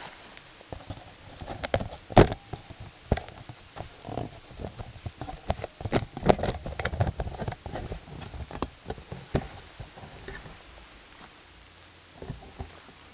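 Footsteps crunching through leaf litter and twigs on a forest floor, with one louder snap about two seconds in; the steps thin out near the end.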